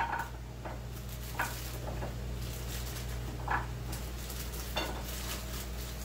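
Plastic bag of carrots crinkling as carrot pieces are shaken out and drop onto a ceramic plate: a handful of short, separate taps and rustles over a steady low hum.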